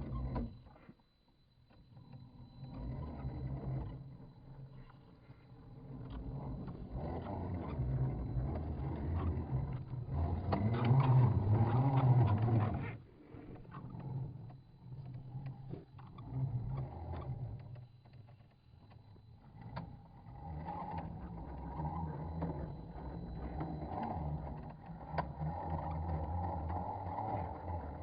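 Electric drivetrain of an Axial SCX10 II-based 1/10-scale RC rock crawler driving over a trail. The motor and gears run in surges that speed up and slow down, with brief stops about a second in and twice near the middle, and a faint steady high whine throughout.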